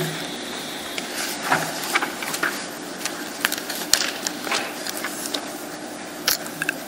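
Meeting-room room tone: a steady hiss with scattered small clicks and knocks.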